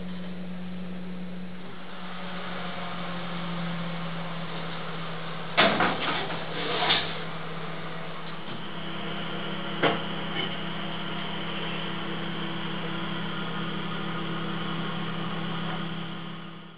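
Electric oven running with a steady motor hum, broken by a few sharp knocks partway through; the hum cuts off suddenly at the end.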